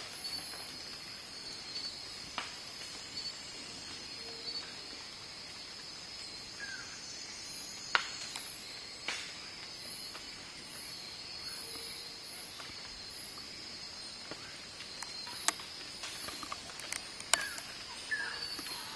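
Steady high-pitched insect chorus, with a few sharp clicks scattered through it, the loudest about eight seconds in, and a few short faint chirps.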